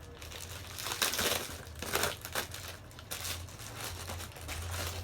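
Packaging being handled during an unboxing: irregular crinkling and rustling, loudest about a second and two seconds in, over a steady low hum.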